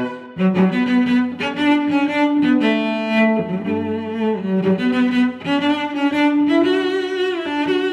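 Background music: a melody of held notes that change pitch every half second or so, with a lower part underneath.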